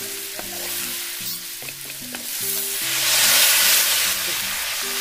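Bamboo shoot slices and onions frying in oil in a metal wok, stirred and scraped with a wooden spatula. Nearly three seconds in, water is poured into the hot wok and the sizzle swells to a loud hiss.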